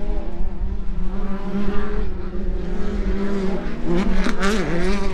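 A steady engine drone at an off-road race, holding one pitch with a slight wobble, and a short voice heard about four seconds in.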